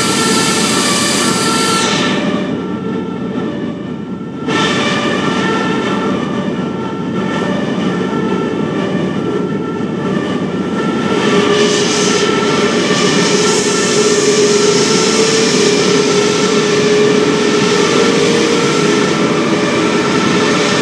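Airbus A380's jet engines running at taxi power: a steady whine of several tones over a broad rush. The rush drops away for a couple of seconds about two seconds in, then comes back.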